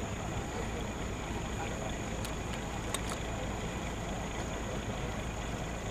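A steady low rumble of open-air background noise, with a few faint clicks about two and three seconds in.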